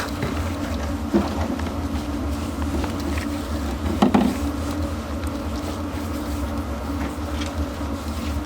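A steady low mechanical hum, with a light knock about a second in and another about four seconds in.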